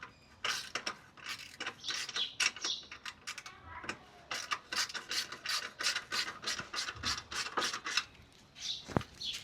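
Socket ratchet wrench clicking in two quick runs of strokes, about five clicks a second, while undoing a motorcycle exhaust fastener.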